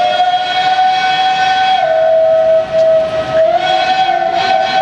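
Steam locomotive whistle of SBB B 3/4 1367 sounding one long blast. Its pitch drops lower for a while in the middle and then climbs back up, over a light hiss of steam.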